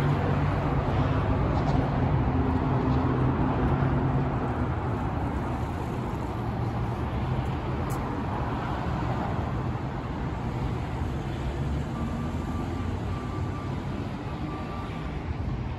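City road traffic: vehicles passing through an intersection, with an engine hum that is strongest in the first few seconds and then settles into a steady traffic noise. Near the end a short electronic tone beeps several times.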